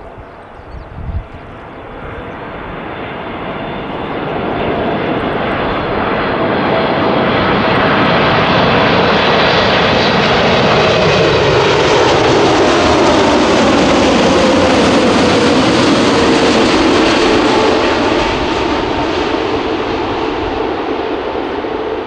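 Boeing 747-8F freighter's four GE GEnx-2B67 turbofans at approach power as the jet comes in low to land. The jet noise builds over the first several seconds, holds loud while the aircraft passes close by, and the engine tones slide down in pitch as it goes past, easing off a little near the end.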